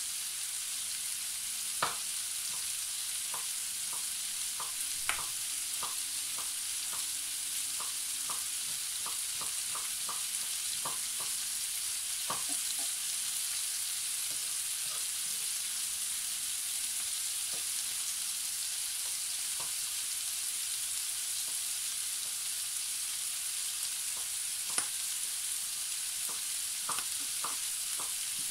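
Diced carrots, leeks and other root vegetables sizzling in hot fat in a heavy roasting pan. It is a steady frying hiss, broken by irregular sharp pops and crackles.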